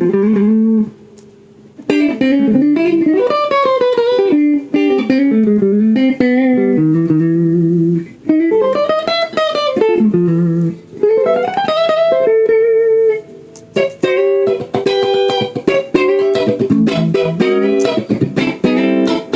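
Guitar playing a melody with bending, sliding notes over plucked attacks, breaking off briefly about a second in and again about two-thirds of the way through.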